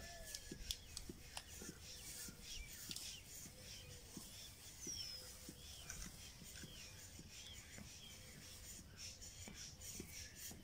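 Faint birdsong: scattered short chirps and arched high notes from several birds, with a few light ticks.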